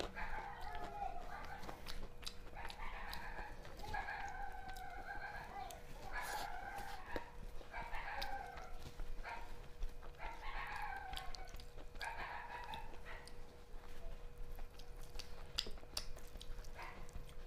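Chickens calling in the background, about a dozen calls of roughly a second each, with small clicks from fingers working food on a steel plate and a faint steady hum.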